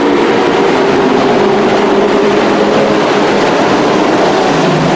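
A pack of dirt-track race trucks running hard around the oval, their engines blending into one steady, loud drone.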